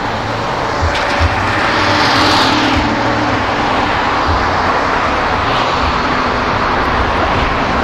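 Street traffic noise, with a vehicle passing about two seconds in and short low thumps scattered throughout.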